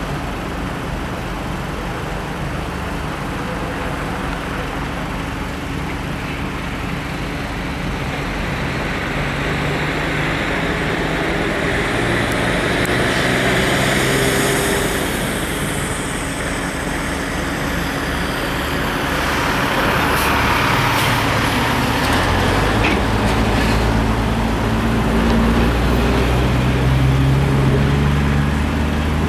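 A semi truck with a box trailer drives past on the road, its engine and tyres loudest about a third of the way through, and a second vehicle passes a few seconds later. Underneath runs the steady low idle of two EMD GP38-2 diesel locomotives, which grows louder and deeper near the end.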